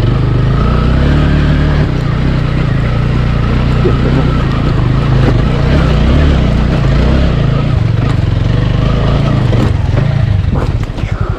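Motorcycle engine revving under load as the bike tries to climb a steep off-road slope, its rear tyre not gripping.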